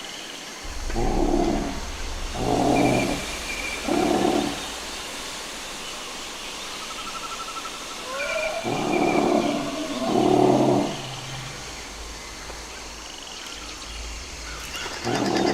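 Dinosaur sound effect: a series of deep, pitched roaring calls, three in quick succession near the start, two more midway and a sixth near the end, over a jungle-like ambience with faint chirping and trilling birds and a low rumble.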